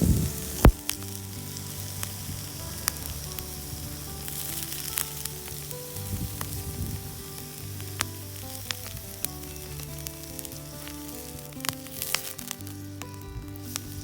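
Wood fire crackling, with scattered sharp pops over a steady hiss, under soft background music with held low notes.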